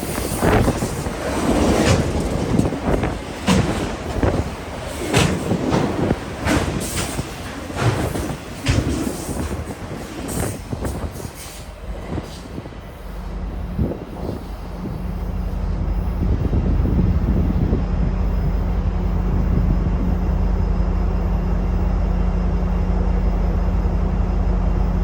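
Freight train cars rolling past at speed, wheels clicking rapidly over rail joints, for about the first half. The clicking then fades and gives way to a steady low drone.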